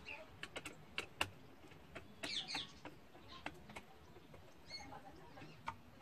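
Faint scattered clicks and ticks of a screwdriver and fingers on a ceiling fan's light housing as its screws are undone. A short bird chirp comes a little over two seconds in.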